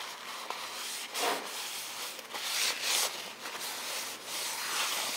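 Paper towel rubbing and wiping a flanged metal bearing cover plate on a steel bench: a series of soft swishing wipes, a few stronger strokes among them, as old oily grime is cleaned off the part.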